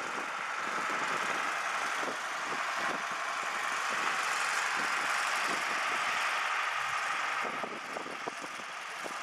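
Tractor engine running steadily under load as it tows a fishing boat on its trailer up the beach.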